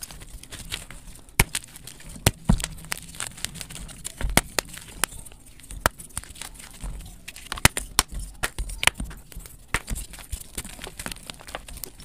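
Blocks of dyed gym chalk crumbling and cracking as they are squeezed and broken apart by hand: a dense, irregular run of sharp cracks and crunches over a soft powdery rustle, played sped up.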